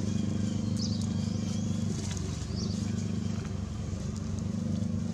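A small engine hums steadily underneath, dipping briefly about two seconds in. Over it come a few short, high squeaks from young macaques as they wrestle.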